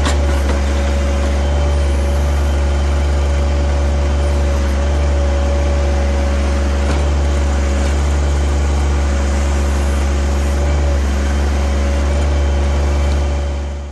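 John Deere compact tractor's engine running steadily while its backhoe digs, with a steady higher whine over the low engine hum; the sound cuts off at the very end.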